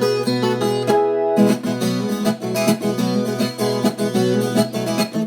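Viola caipira playing a fast picked solo at normal tempo, quick runs of single notes with a short break about a second in.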